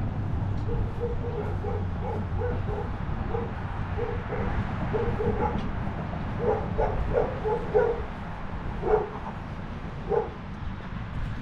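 A dog barking in runs of short, evenly pitched barks, about three a second, then only a few spaced barks near the end, over a low steady rumble.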